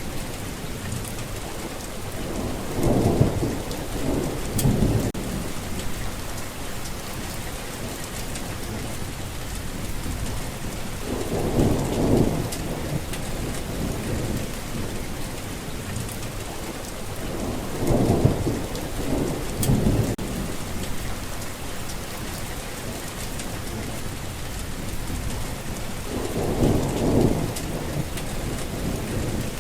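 Steady rain falling, with low thunder rumbling four times, a roll every seven or eight seconds.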